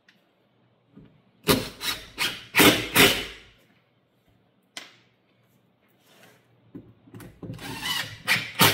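Several sharp knocks and clatter of handling on the wooden cabinet, then near the end a cordless DeWalt drill briefly driving a screw into the cabinet's side.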